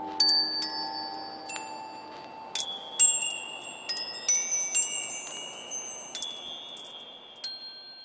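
Chimes tinkling: a scatter of high bell-like tones struck one after another and left ringing, thickest from about two and a half to six and a half seconds in. A lower held tone fades away during the first couple of seconds.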